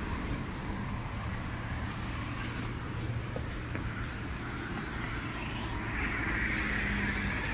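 City street ambience: a steady low rumble of traffic, with a passing vehicle's noise swelling near the end.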